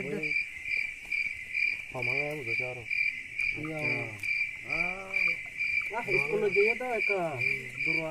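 Crickets chirping steadily, a high even pulse about twice a second, under men's voices talking.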